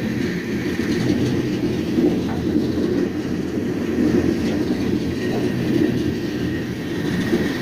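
Freight train rolling along the track, heard from aboard one of its cars: a steady, loud rumble of steel wheels on rail with light clatter and a faint steady high whine.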